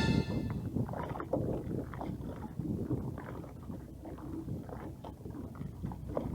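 Ambient noise aboard a small fishing boat: wind on the microphone with an uneven rumble from the water and the boat, and no steady engine tone.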